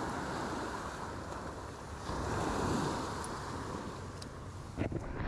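Surf washing onto the beach in swelling waves, with wind buffeting the microphone. A short knock near the end.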